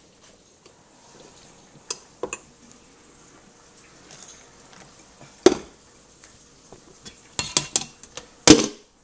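Metal cooking pot knocking and clanking against the sink while boiled potatoes are drained of their cooking water: a few light knocks early, a loud clank in the middle, then a quick run of clanks and the loudest bang near the end.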